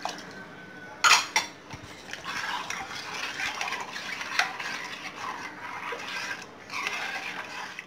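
Steel spoon stirring and scraping round a stainless steel bowl of thin rice-flour batter in kokum water, with steady clinking against the bowl. Two sharp knocks about a second in, and a brief pause in the stirring near the end.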